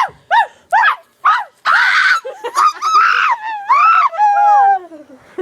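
A girl imitating a dog with her voice: a few quick high yelps, then a loud scream about one and a half seconds in, then a drawn-out howl that slides down in pitch near the end.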